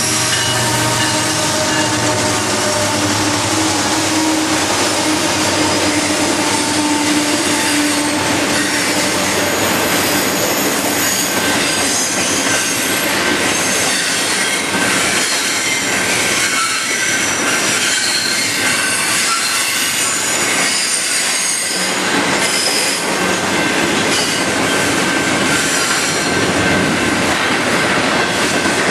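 A diesel-hauled freight train passing close by. The locomotives' engines are heard for the first several seconds, then a long string of double-stack container well cars rolls by with steady wheel-on-rail noise and thin, high squeals from the wheels on the curve.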